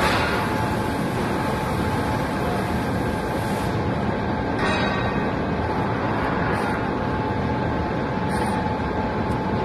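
Steady machine noise: a continuous even rush with a faint steady hum underneath.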